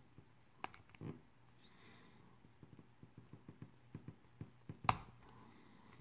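Small flat screwdriver prying a 3D-printed plastic actuator into its mounting holes: a run of faint clicks and scrapes of plastic, then a sharp snap about five seconds in as the actuator's nub pops into place.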